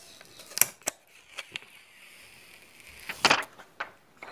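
Handling noises from a smartphone and its packaging: several small clicks and taps, then a brief, louder rustle or scrape about three seconds in.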